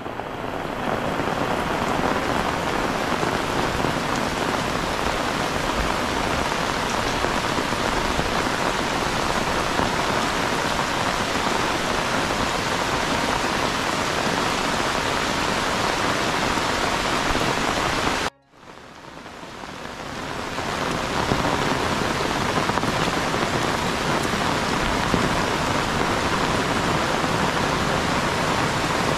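Heavy rain falling steadily in a dense, even hiss. It cuts out abruptly about two-thirds of the way through and fades back in over a couple of seconds.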